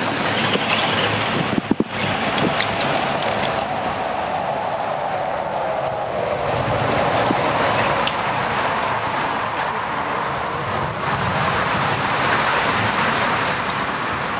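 Steady rush of water from a partly frozen waterfall and its stream, with a brief dip just under two seconds in.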